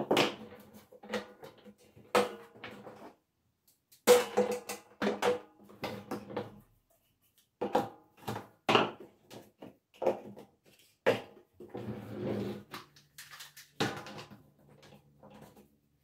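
Hard plastic nozzles and stainless-steel extension tubes knocking and clicking as they are fitted into the accessory holders on the body of a Parkside PWD 30 B1 wet-and-dry vacuum. The knocks and rattles are irregular, with two short pauses.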